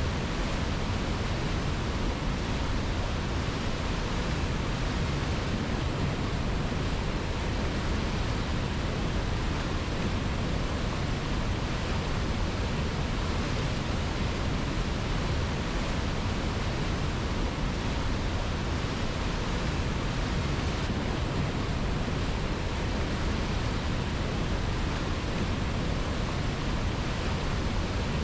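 Steady rushing of river water, an even hiss and rumble with no breaks or changes.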